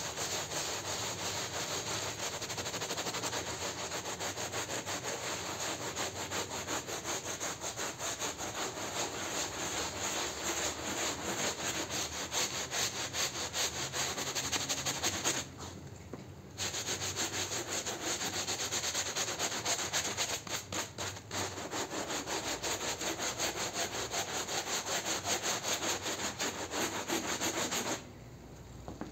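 Stiff hand scrub brush scrubbing a wet, soapy shag rug in rapid back-and-forth strokes. The scrubbing pauses for about a second midway and stops shortly before the end.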